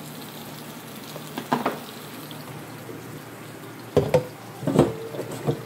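Kitchen handling clatter at the sink over a steady low hiss: a short knock about a second and a half in, then several louder knocks and rattles near the end as a plastic colander of spinach is picked up.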